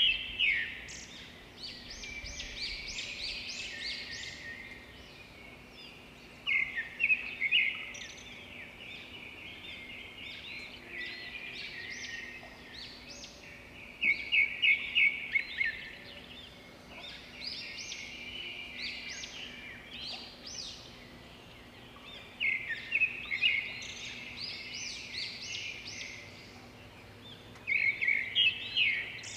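Red-whiskered bulbul singing: short loud bursts of rapid, warbling notes about every seven seconds, with softer chattering between them.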